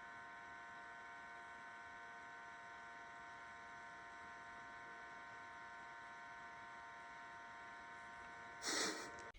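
Faint steady electrical hum made of several steady tones, with a short burst of hiss near the end.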